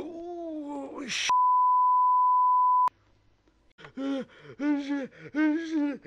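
A man's voice groaning, the pitch falling over about a second and ending in a breathy rush of air; then a steady, high, pure beep tone for about a second and a half. After a short pause the voice makes three short, evenly pitched sounds, about one a second.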